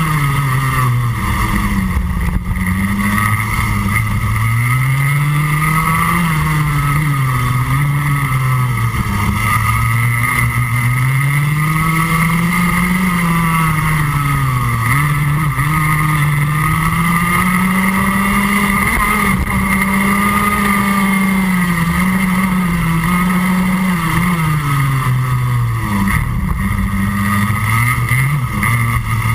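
Rotax Max Junior 125cc two-stroke single-cylinder kart engine at racing speed, heard up close on board. Its pitch repeatedly drops as the kart slows into a corner and then climbs again under full throttle out of it.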